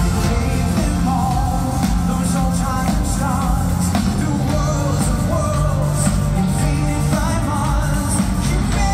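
Live rock band playing in an arena: a lead singer holding wavering notes over steady bass and drums, recorded on a phone from far back in the crowd.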